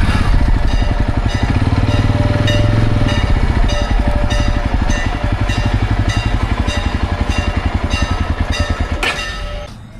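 Motorcycle engine running steadily, with a light regular ticking about three times a second. The engine sound drops away shortly before the end.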